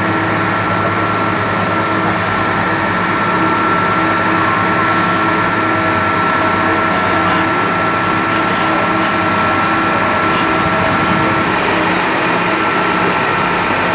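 Passenger boat's engine running steadily, a constant drone with a steady high whine, over a rushing noise of water and wind.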